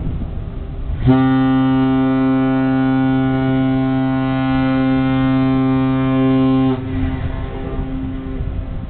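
The research ship Bōsei Maru's horn sounding one long, steady blast of about six seconds, a low tone with many overtones that starts about a second in and cuts off sharply. It is sounded as the ship sets out on departure.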